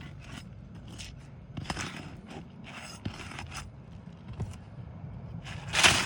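Asphalt roofing shingles scraping and rustling in several short bursts, with a few sharp clicks, as an old shingle is worked loose from its nails. The longest and loudest scrape comes near the end as the shingle is drawn out.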